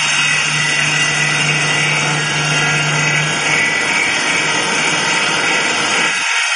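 Log notch-cutting machine running, its cutter milling a saddle notch into a rounded log: steady noise of wood being cut over a low motor hum. The low part of the sound stops abruptly near the end.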